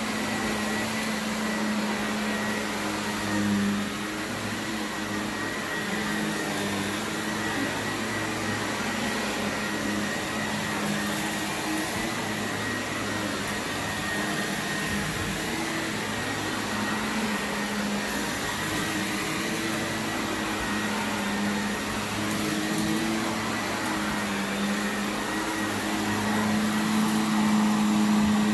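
Shark vacuum cleaner running steadily on carpet, a continuous motor hum with a thin high whine, getting a little louder near the end.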